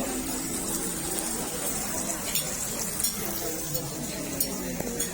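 Restaurant table ambience: a steady hiss under faint background chatter, with a few light clinks of tableware, about 2.4, 3 and 4.4 seconds in.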